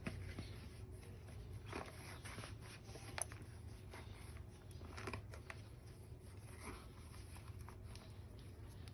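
Faint rustling and a few light clicks or taps over a low steady room hum.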